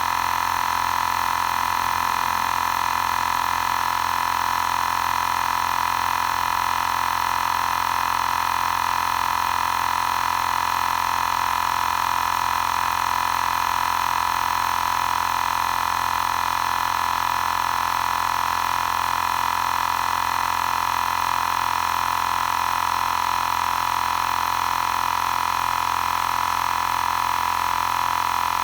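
Xiaomi Portable Electric Air Compressor 2 running steadily while inflating a nearly flat spare tyre: an even, unchanging mechanical hum.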